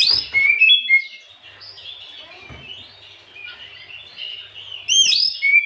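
Oriental magpie-robin (kacer) singing: a varied run of clear, sweeping whistles and chirps, loudest in bursts at the start and again near the end, with quieter twittering between.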